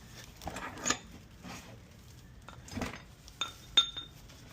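Metal tools and parts clinking and knocking as they are handled during wheel removal: a few separate clinks, the loudest near the end ringing briefly.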